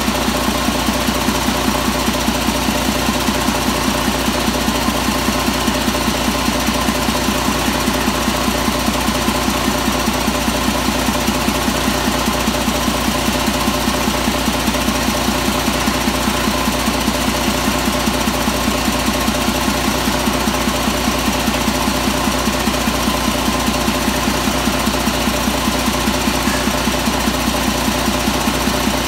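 2012 Detroit DD13 inline-six diesel engine running steadily at idle on a test stand, with an even rapid pulse and no revving.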